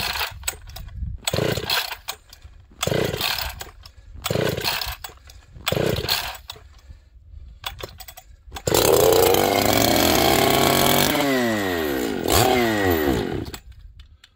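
A ported, high-compression Husqvarna 266 two-stroke chainsaw with a pop-up piston and no decompression valve, being pull-started in deep cold. About five hard pulls on the starter cord, then it fires about nine seconds in and runs, revving down and up for around five seconds before it stops.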